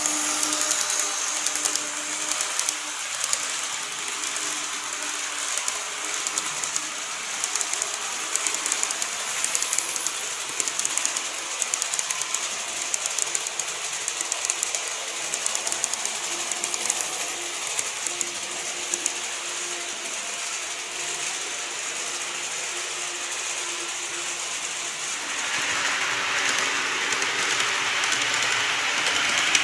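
N-gauge model trains, a KATO E259 series and a TOMIX 209 series, running on the track: a faint motor hum under a fast, steady clicking of small wheels over the rails. The running noise grows louder and hissier near the end.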